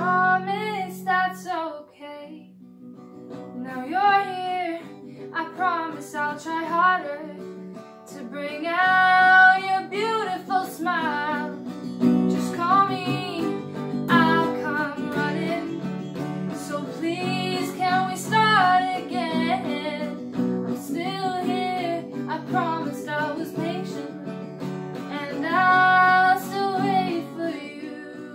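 A woman singing while strumming an acoustic guitar, in sung phrases with short guitar-only gaps between them.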